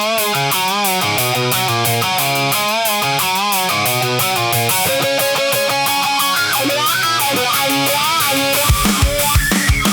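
Instrumental intro of a fast post-grunge rock song: electric guitar plays a melodic line with bent, wavering notes over a fast, even cymbal pulse. Heavy low drum hits come in near the end.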